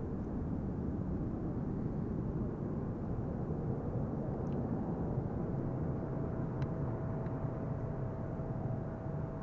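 Boeing 777-200 airliner on final approach with its landing gear down: a steady low engine rumble. A thin steady whine joins it about halfway through.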